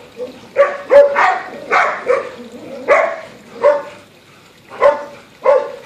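Dog barking repeatedly, about ten short sharp barks at an uneven pace, as the dogs play-fight and chase each other.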